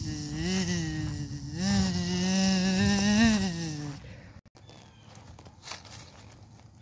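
Fly-like buzzing, a steady drone that wavers a little in pitch, which stops about four seconds in; after it only faint background sound with a few soft clicks is left.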